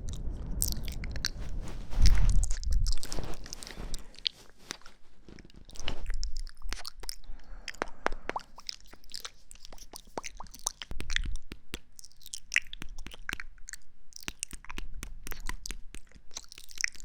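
Close-miked ASMR trigger sounds: a run of quick crackling clicks with a few soft low thumps, the loudest about two seconds in.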